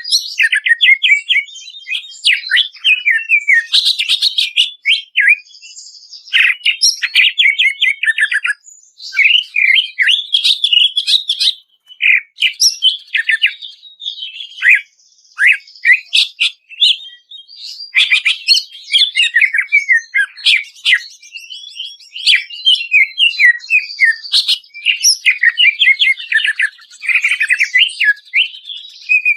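Green leafbird (cucak ijo) singing a loud, busy song of rapid chattering trills and quick whistled notes, phrase after phrase with only brief pauses.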